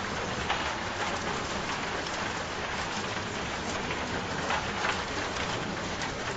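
Steady rain falling, with now and then a sharper drop standing out from the even patter.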